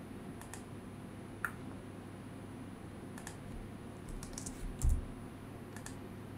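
Scattered clicks of a computer keyboard and mouse, a few at a time, with a dull low thump about five seconds in, over a faint steady hum.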